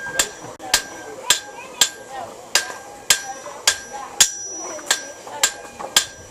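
Blacksmith's hammer striking iron held in tongs on an anvil, a steady run of about eleven blows at roughly two a second, each with a bright metallic ring.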